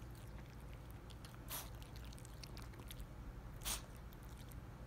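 Toy poodle eating soft chopped vegetables off a plate: faint wet chewing and licking, with two short, louder smacks, about a second and a half in and again about two seconds later.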